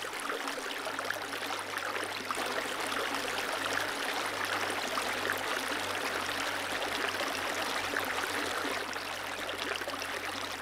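Steady rushing noise with a faint low hum beneath it.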